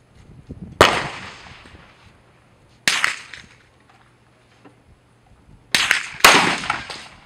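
Rifle shots at an outdoor firing range: four sharp cracks, about a second in, about three seconds in, and a pair near the end half a second apart. Each trails off in a short echo.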